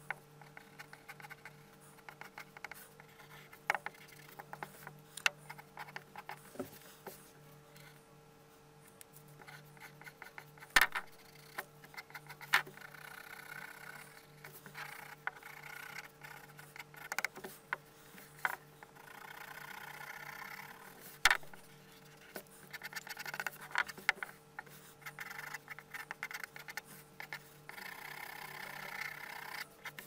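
Pencil scratching on paper in several runs of quick hatching strokes while shading a drawing, mostly in the second half, broken by occasional sharp clicks and taps.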